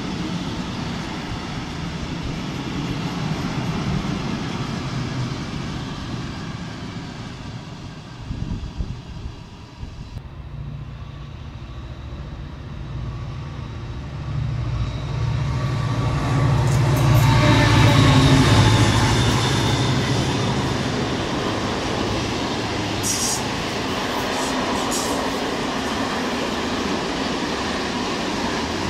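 A freight train of fuel tank wagons rolling past. Then an M62M diesel locomotive approaches and passes with a loud low engine drone that peaks a few seconds later. A train of open coal wagons follows with steady wheel-and-rail rolling noise and a few short sharp clicks.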